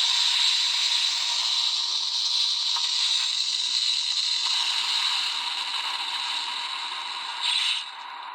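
Electronic sound effect played through a Gokaiger Memorial Edition toy weapon's small built-in speaker: a long hissing, crackling noise that slowly fades, with a brief louder burst near the end.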